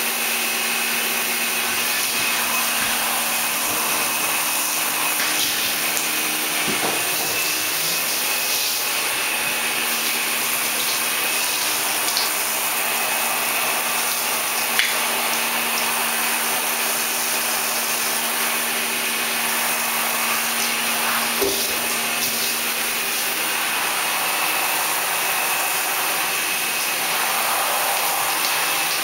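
A shower running in a bathtub: a steady hiss of water spray with a low, even hum beneath it.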